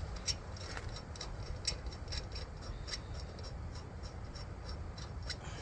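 Light metallic ticking, a few uneven clicks a second, as a lug nut is turned down a new wheel stud against a stud installer tool, drawing the stud into the axle hub.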